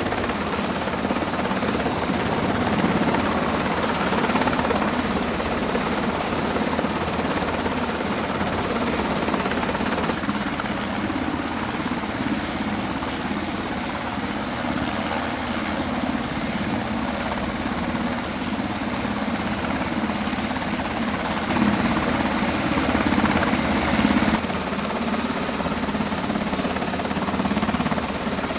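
Coast Guard MH-60 Jayhawk helicopter running on a ship's flight deck, its twin turbines and turning rotors making a steady noise with a thin high whine over it. The sound shifts abruptly about ten seconds in and again near twenty-four seconds.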